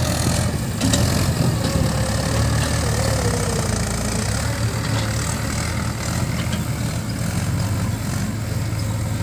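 Diesel engine of heavy machinery idling steadily.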